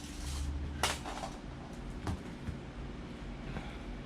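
Handling noise from working on a laptop's bottom cover: a short rustle, then one sharp click about a second in and a few faint ticks, over a steady low hum.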